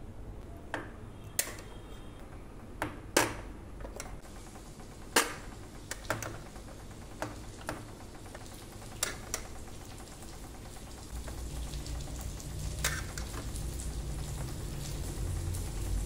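Scattered sharp clinks and taps of a steel spoon against a steel bowl and steel spice box as ground spices and salt are spooned in. A low steady hum comes up about eleven seconds in.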